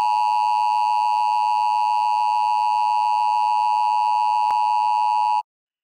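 Emergency Alert System two-tone attention signal broadcast over radio: a loud, steady electronic tone near 1 kHz with a faint click about four and a half seconds in. It cuts off abruptly about five seconds in, marking the end of the alert tone before the spoken warning.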